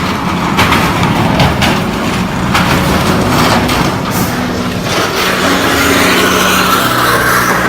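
A heavy vehicle, most likely a truck, running loudly with a steady low engine drone under a rough roar of noise. Sharp knocks and rattles come through it several times in the first few seconds.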